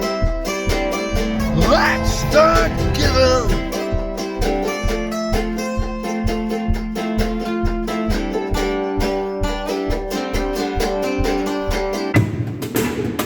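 Background music: a plucked-string tune over a steady beat, with a short gliding vocal line about two seconds in. Near the end the beat drops out and a noisier wash takes over.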